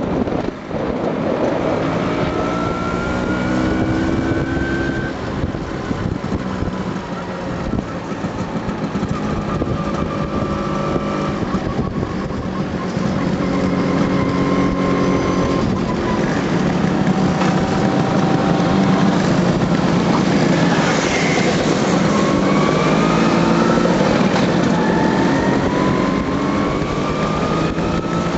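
Motor scooter engines running as a group rides along, the pitch repeatedly rising as they rev up through the gears, over steady wind noise.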